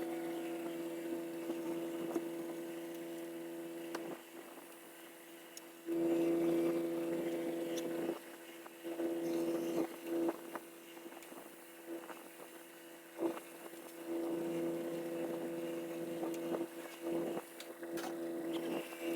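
A motor hums at one steady pitch in on-and-off spurts of a second or two, with scattered knocks and clanks in between, as the old parts car is loaded.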